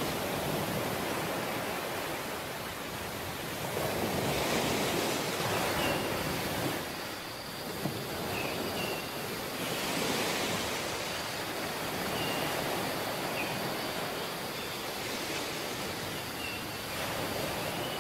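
Sea waves washing on the shore, a steady rush that swells and eases every few seconds, with a few short high chirps scattered over it.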